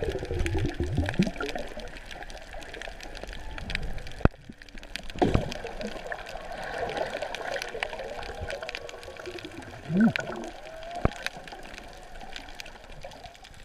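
Water and bubbles gurgling, heard through a camera held underwater, with many scattered sharp clicks and crackles; the loudest clicks come about four, five and eleven seconds in.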